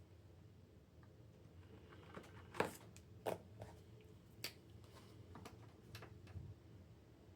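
Faint room tone broken by a few light, sharp taps and clicks, the loudest about two and a half seconds in and another soon after.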